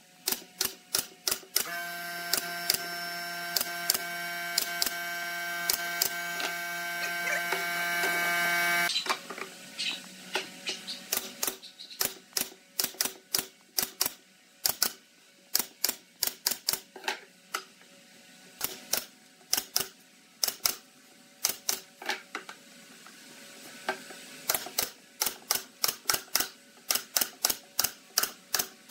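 Pneumatic nail gun driving nails into pine boards, a long series of sharp shots in quick runs of several per second. A steady machine hum joins about two seconds in, grows louder and cuts off abruptly about nine seconds in.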